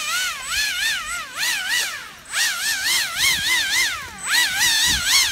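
Pro Boat Aerotrooper RC airboat's brushless motor and air propeller whining on the run over snow. The pitch swoops up and down two or three times a second, with a brief drop about two seconds in.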